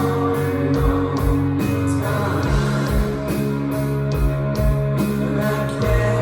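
Live rock band playing: electric guitar and drums with a steady beat, and a voice singing over them.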